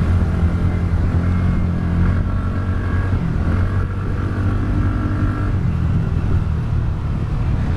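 TVS Ntorq 125 scooter's single-cylinder engine running steadily while riding in town traffic, a continuous low drone.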